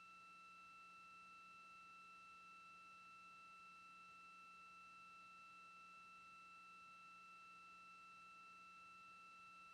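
Near silence, apart from a faint, steady, high-pitched electronic tone that does not change.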